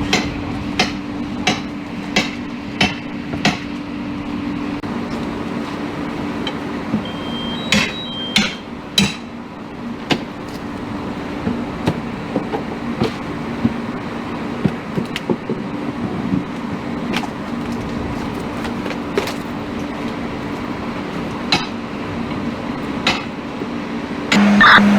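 Repeated sharp knocks and cracks of firefighters' hand tools striking and prying off burnt exterior siding, evenly spaced at first, about three strikes every two seconds, then irregular. A steady low hum of fire apparatus running lies underneath.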